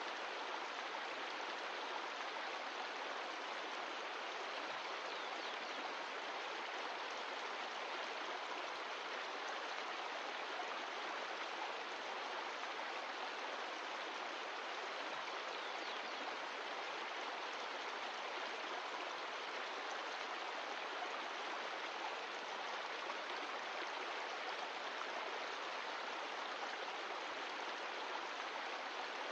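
Mountain stream of glacial meltwater running over rocks, a steady even rush of water.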